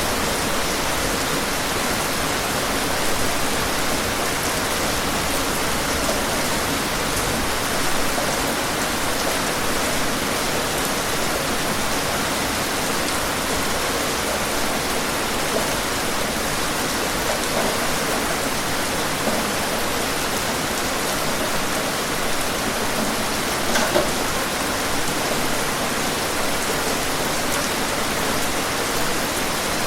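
Heavy rain pouring steadily, a dense even hiss of drops hitting surfaces, with a few louder splashes standing out now and then.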